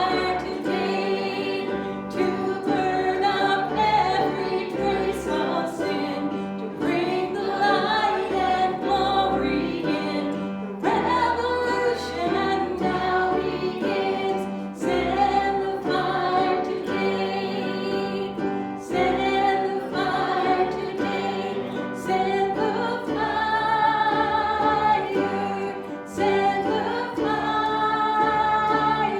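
Church congregation singing a hymn together over instrumental accompaniment with sustained bass notes.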